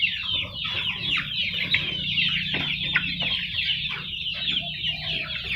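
A flock of young kampung chickens peeping, with many short, high calls falling in pitch and overlapping one another.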